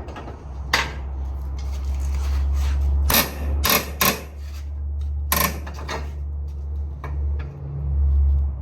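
Sharp metallic clanks and knocks of hand tools and parts being worked under a car, about five of them spread over the stretch, over a steady low rumble.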